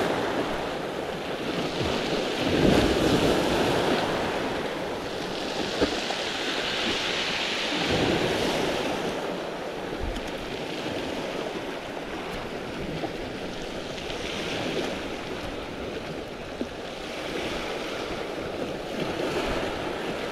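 Small sea waves breaking and washing up over a shingle shore, swelling and easing every few seconds, with some wind on the microphone.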